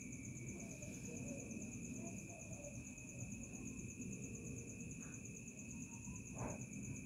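Faint, steady high-pitched insect trilling over a low background hiss, with a short click about six and a half seconds in.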